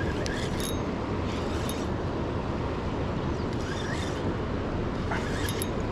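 Steady rushing outdoor noise, heaviest in the low end, with a few short faint chirps now and then.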